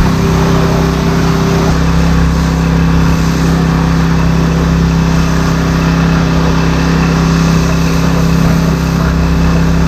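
Farm machine engine running steadily at constant speed, a continuous even drone.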